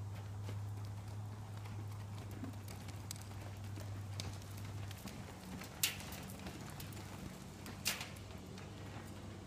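Hoofbeats of a horse running on loose arena dirt, with two sharp knocks in the second half, over a steady low hum.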